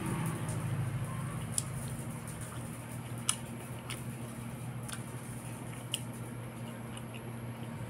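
Eating a cooked tilapia by hand: soft wet squishes and a few sharp clicks and smacks as fingers pick at the fish and bring it to the mouth, over a steady low hum.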